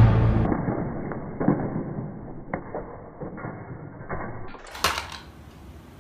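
Music ending, then slowed-down audio of a pencil case dropped onto a bed: a few dull knocks and light rattles as the case lands and its crayons spill, with a sharper click about two and a half seconds in and more knocks near the end.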